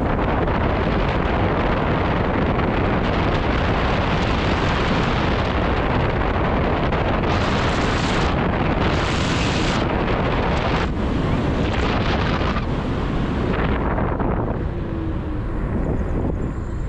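Loud, steady wind rush buffeting an action camera's microphone while riding an electric scooter at speed; it eases and thins near the end.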